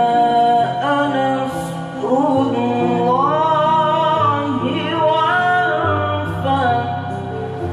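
A male qori chanting Quran recitation (tilawah) in long ornamented melodic phrases. The voice holds notes and glides between them, rising into a high sustained phrase about three seconds in.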